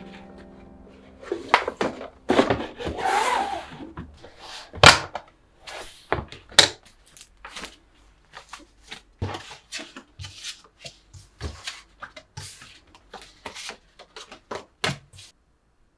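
Paper and card being handled: rustling and sliding at first, a sharp knock about five seconds in, then many light taps and flicks as postcards are taken from a plastic case and set down on a wooden desk.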